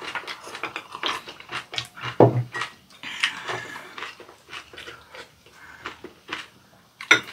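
Close-up eating sounds: slurping spicy fish roe soup off spoons, chewing and lip smacking, with spoons and chopsticks clicking against ceramic bowls. One louder knock comes just after two seconds in.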